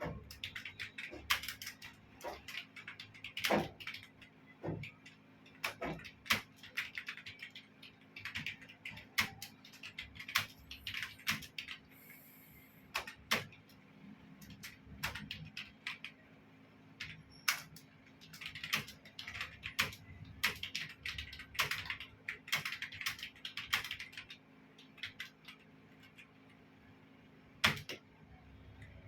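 Computer keyboard keys clicking in fast, uneven runs of keystrokes during continuous typing, with a couple of pauses of a second or two, over a faint steady low hum.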